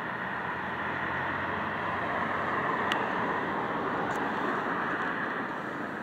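Rushing traffic noise of a vehicle passing, swelling about halfway through and then fading away.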